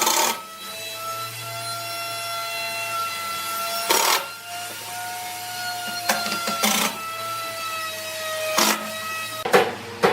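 A small electric motor, likely a woodworking power tool, whining steadily with a slightly wavering pitch. It is broken by several short, harsh bursts of noise, about a second in, around four seconds in, twice near six to seven seconds, and near the end.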